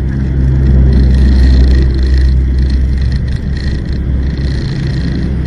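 Steady low engine drone and road noise from a vehicle driving in traffic, swelling slightly about a second in and then easing.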